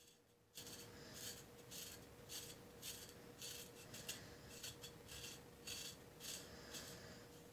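An LT Wright Kamrat knife scraping dry psoriasis scales off the skin of a shin, in quick repeated raspy strokes, about two a second, starting about half a second in.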